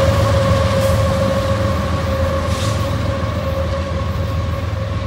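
Union Pacific freight train passing at speed: a loud, heavy rumble of wheels on the rails, with a steady high whine over it that slowly sinks in pitch.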